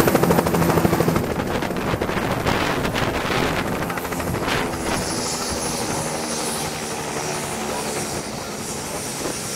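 Bell 206-series turbine helicopter running on the ground with its main rotor turning. The blade beat is loud at first and gradually eases, under a thin high turbine whine that drops in pitch over the first several seconds.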